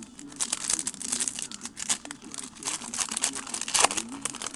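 Trading-card pack wrapper crinkling as it is handled and torn open, a rapid run of crackles.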